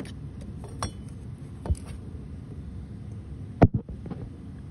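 Handling noise among engine parts: a few light taps, then two sharp knocks in quick succession about three and a half seconds in, over a steady low rumble.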